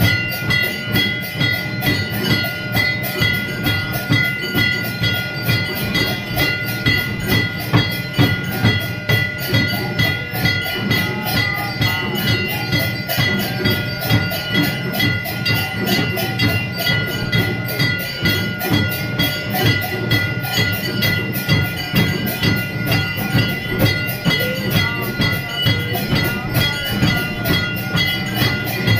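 Temple aarti percussion: brass bells ringing continuously over a fast, even beat of struck drums and bells, during a Shiva harathi.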